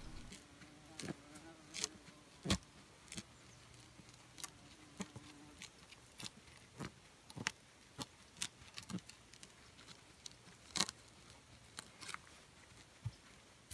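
Faint scattered clicks, taps and scrapes of a carved wooden stick and fingers pressing moss into the gaps between logs, chinking a log wall. A fly buzzes faintly for the first half or so.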